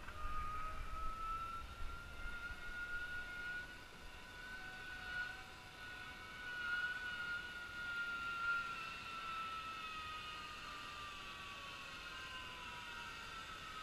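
A zipline trolley's pulleys whining along the steel cable as a rider comes in. It is one long whine that climbs in pitch at first, holds, then drops over the last few seconds.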